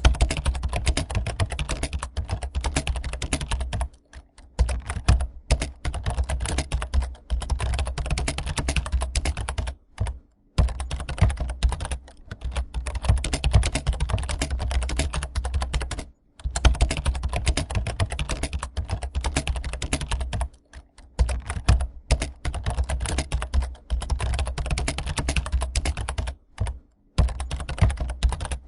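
Rapid, continuous typing on a computer keyboard: many fast key clicks, with a low hum underneath, stopping for short pauses about 4, 10, 16, 21 and 27 seconds in.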